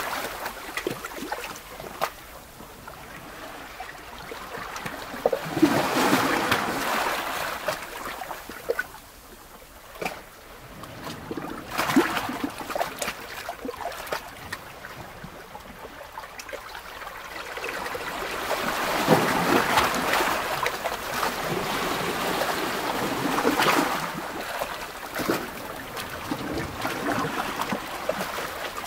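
Rushing water noise that swells and fades every few seconds, with a few faint clicks.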